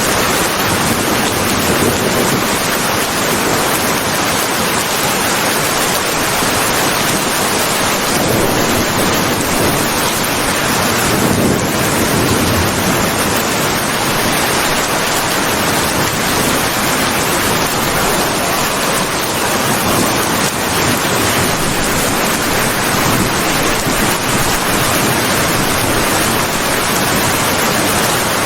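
Steady rain falling as a continuous, even hiss, with no breaks or single impacts.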